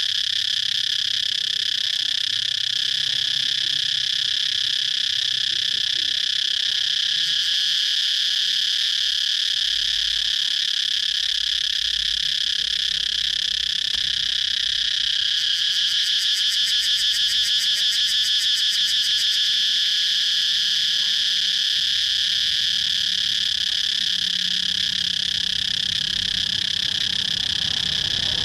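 Cicadas singing: a continuous high-pitched drone, with a faster pulsing trill joining in for a few seconds around the middle.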